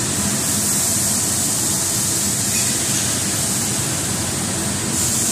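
Rubber profile extrusion and vulcanization line running: a steady, even high hiss over a faint low hum.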